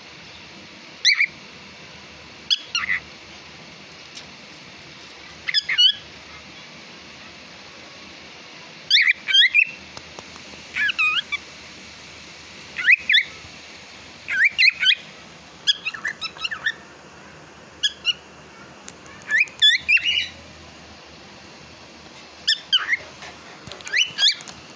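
Cockatiel calling with short whistled chirps that sweep up and down in pitch, some single and some in quick runs of two or three, every second or two.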